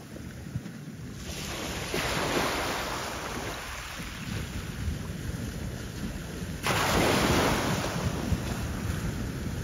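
Wind buffeting the microphone over the wash of choppy harbour water, with a louder gust about two-thirds of the way through.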